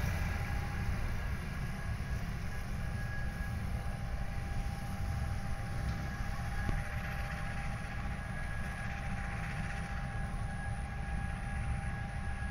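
Steady low rumble with a faint steady whine from a distant CC201 diesel-electric locomotive idling at the head of a passenger train, ready to depart. A motorcycle fades away in the first couple of seconds.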